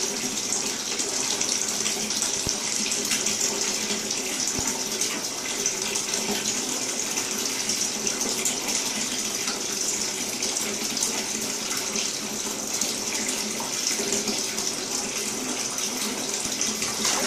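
Bathtub tap running steadily, water pouring into the tub.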